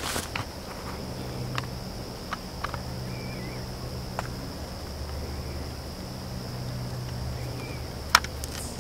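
Insects trilling in one steady high note, over a low steady hum, with a few faint clicks and one sharp click near the end.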